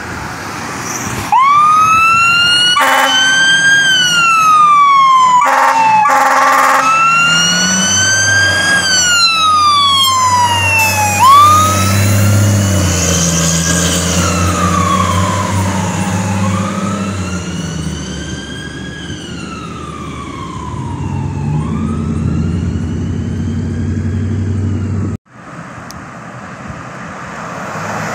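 Fire engine siren wailing, rising and falling about every five seconds, with two short horn blasts a few seconds in. The truck's engine runs underneath as it pulls away. The sound cuts off suddenly near the end and comes back quieter.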